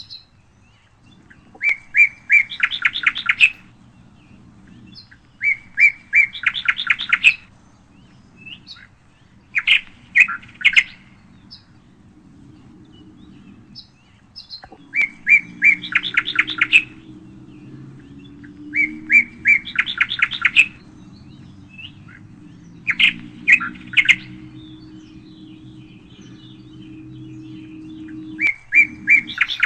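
A songbird singing the same short phrase over and over, about seven times: a few clear notes running into a quick trill, with a few seconds' pause between phrases. A faint low steady hum sits underneath and grows slightly louder about halfway through.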